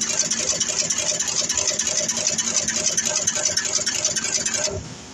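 Automatic LED insertion machine running at speed: a rapid, even mechanical clatter of about six or seven strokes a second from the insertion head. It drops away sharply near the end.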